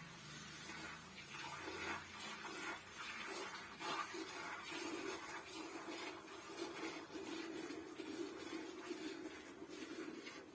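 A cow being milked by hand: streams of milk squirting from the teats with a soft hissing sound. A steady low hum runs underneath, stronger from about four seconds in.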